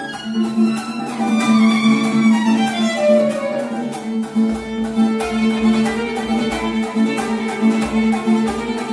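Violin playing a lively tune over a rhythmically strummed small guitar, the violin sliding down in pitch between about one and three seconds in.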